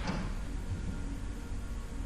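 A short knock of parts being handled, then a steady low hum of shop background noise.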